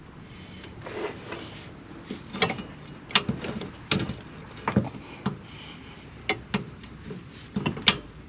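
Hand tools working on metal car parts during reassembly after an axle swap: sharp, irregular clicks and clanks, about one or two a second, with a few quick runs of clicks.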